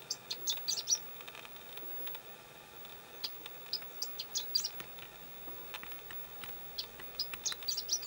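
Chestnut-eared bunting singing: three songs a few seconds apart, each a quick run of short, high notes lasting about a second.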